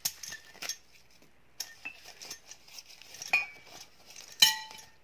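Porcelain cups and plates clinking together while they are unwrapped from clear plastic wrap, with light rustling of the plastic. A sharp ringing clink comes about three seconds in and a louder one near the end.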